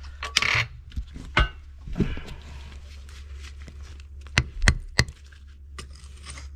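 A hammer striking a rusted sewer cleanout cap set in the floor, about half a dozen sharp knocks at uneven intervals, knocking the cap loose to open the line.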